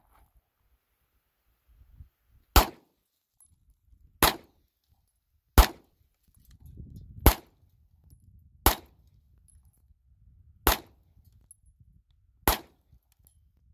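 Seven handgun shots fired one at a time, about one and a half to two seconds apart.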